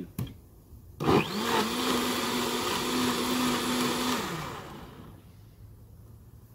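Countertop blender running once for about three seconds, churning roasted tomatillo and serrano salsa thinned with water. The motor spins up, holds a steady pitch, then winds down. A short click comes just before it starts.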